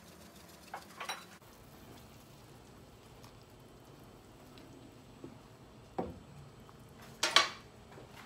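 Soup simmering in a stainless steel pan while a wooden spatula stirs it, with a few brief knocks and scrapes against the pan, the loudest near the end.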